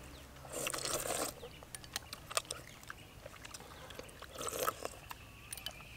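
Slurping spoonfuls of a runny jackfruit and coconut-milk dessert, twice, with small scattered clicks and taps between.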